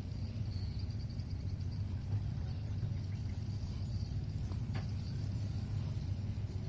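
Steady low machinery rumble, with a faint click about five seconds in.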